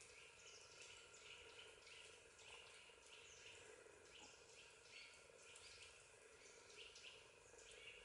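Faint woodland ambience: birds chirping repeatedly in short falling calls, one or two a second, over a steady low hum.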